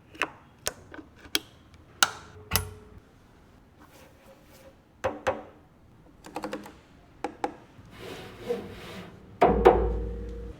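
Sparse sharp percussive hits and clicks with short echoing tails, then a heavy deep bass boom about nine and a half seconds in, played through a JBL VRX 932LAP line-array and SRX 918S subwoofer system.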